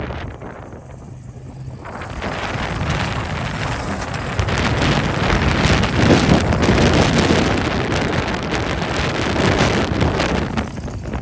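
Strong wind buffeting the microphone in gusts, swelling about two seconds in and easing near the end, with a vehicle engine running low underneath.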